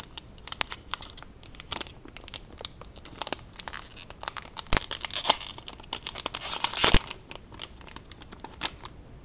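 Packaging being torn and crinkled open by hand: a run of crackles and small clicks, building to a louder tearing rustle about five to seven seconds in that ends in a sharp snap.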